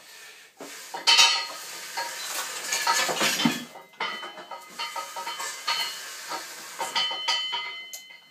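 Steel clanking and rattling as a lifting frame's steel uprights and chain are taken down. Irregular knocks come throughout, loudest a second or so in and around three seconds in, and a few ringing metal notes follow near the end.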